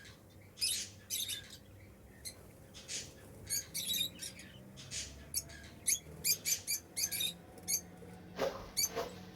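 African lovebirds chirping: short, high-pitched chirps, scattered at first and coming in a quick run from about six seconds in.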